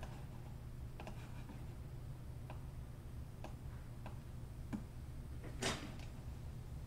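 Faint, scattered clicks of a computer mouse and keyboard, roughly one every second or so, with one louder click near the end, over a low steady hum.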